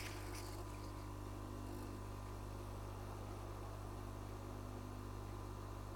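Steady low electrical hum with faint hiss, the unchanging background of running bench equipment.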